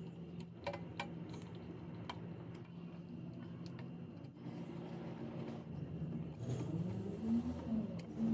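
An engine running steadily with a low hum, rising in pitch and getting louder from about six and a half seconds in. A few light clicks come about a second in.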